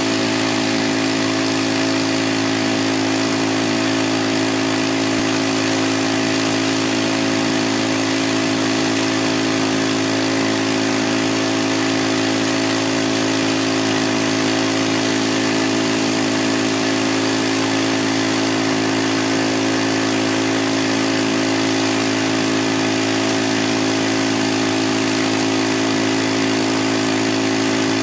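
Small gasoline engine of a floating gold dredge running steadily, over the rush of a fast creek.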